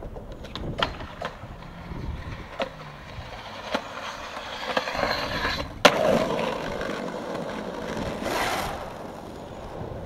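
Skateboard rolling with a few light clicks, then a loud sharp crack of the board about six seconds in, followed by a louder scraping grind and rolling.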